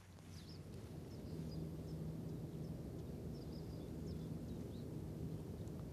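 Low, steady drone of a large container ship's engines, growing a little over the first second and then holding. Small birds chirp faintly now and then above it.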